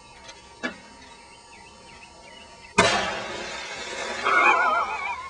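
A television hitting the river from a high bridge: a sudden loud splash about three seconds in that dies away over a second or so. Just after it comes a loud, wavering high yell.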